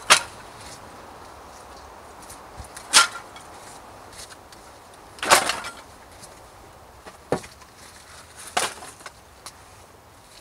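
Split wooden kindling sticks clattering as they are laid piece by piece into a fire lay: five sharp knocks a few seconds apart, the middle one a longer rattle.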